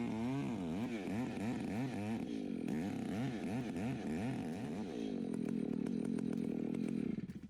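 Chainsaw engine revved up and down several times in quick succession, then running at a steadier speed before it stops near the end.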